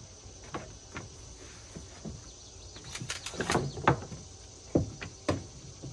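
Short wooden knocks and clacks of 2x4 offcuts being handled and set down on a wooden deck, with a quick run of louder ones about three seconds in. A steady high insect trill runs underneath.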